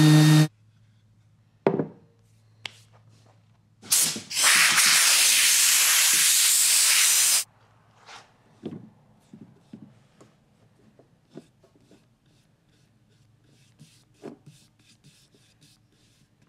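A power tool's motor hum cuts off just after the start, and a couple of sharp clicks follow. Then a loud, steady hiss of spray or blowing air lasts about three seconds, followed by scattered light taps and clicks.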